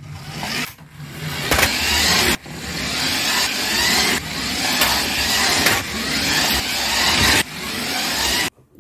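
Car engine revving and accelerating in runs of one to two seconds, each building up and then cutting off abruptly.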